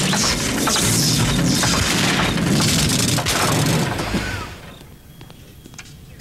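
Cartoon stomach pump machine running: loud noisy surges of machine noise, about one a second, fading away after about four seconds.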